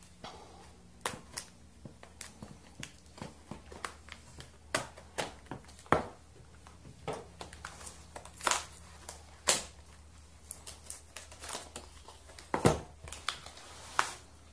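Knife cutting and hands prying open the taped end of a cardboard shipping box: irregular crackles, scrapes and sharp snaps of cardboard and tape, a few louder ones in the middle and near the end.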